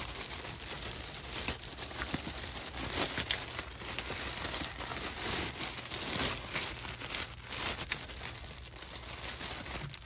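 Thin clear plastic bag crinkling and rustling as hands open it and pull a wiring pigtail out, a continuous run of small crackles.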